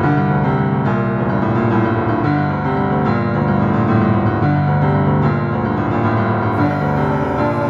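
Background music led by piano.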